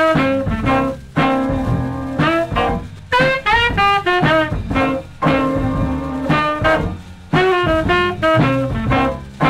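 Small jazz combo recording: saxophone playing the melody in short, punchy phrases with brief breaks, over upright bass and drums.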